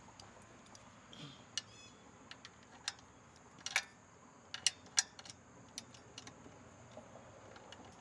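Irregular light clicks and knocks from hand tools being worked under a car during an oil change: a dozen or so sharp ticks at uneven intervals, the loudest clustered around the middle.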